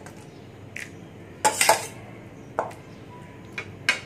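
Steel spoon knocking and scraping against a stainless steel bowl while breaking up boiled potatoes and peas, about five short clinks with the loudest about one and a half seconds in.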